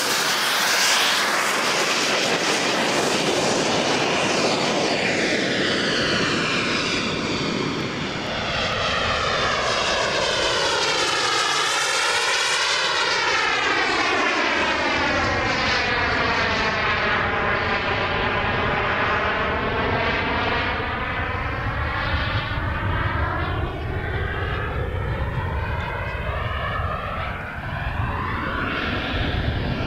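Yakovlev Yak-130 jet trainer's twin turbofan engines as the jet flies a display pass, a steady jet engine noise. It carries a whooshing, phasing sweep that falls through the middle of the pass and rises again.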